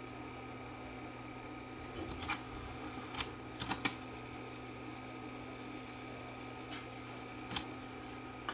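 A handful of sharp plastic clicks as the switches on an MTC portable cassette recorder are worked, the record/play switch among them, over a steady low electrical hum. The clicks fall about two seconds in, a quick cluster just after, and again near the end.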